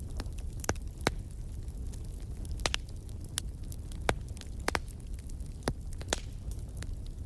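Fire burning in a fireplace: a steady low rumble with about a dozen sharp, irregular crackles and pops, the loudest about a second in and about four seconds in.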